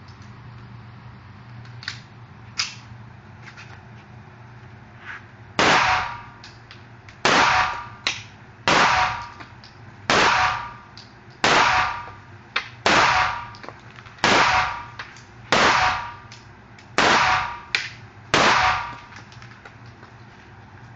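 A 9mm Taurus pistol fired ten times at a steady pace, about one shot every second and a half, each shot ringing briefly off the walls of a small indoor range.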